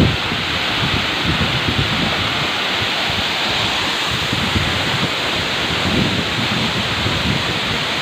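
A tall waterfall rushing steadily as it pours into its plunge pool. Wind and spray buffet the microphone in irregular low gusts.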